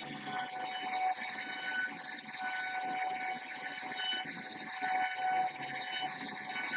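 CNC router cutting wood: a steady high whine from the spindle over a continuous rushing cutting noise.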